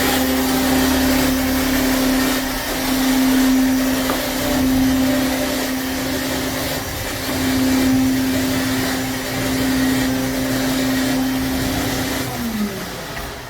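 An electric motor with rushing air runs steadily with a constant hum, then winds down in falling pitch near the end.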